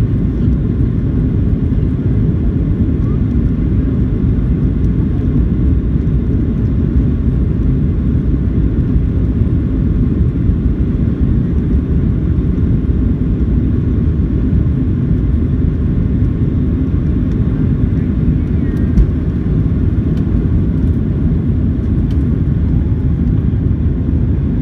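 Boeing 737-700 cabin noise during the takeoff roll and liftoff: the CFM56-7B engines at takeoff thrust make a steady, deep, loud rumble. There is a single brief click about three-quarters of the way through.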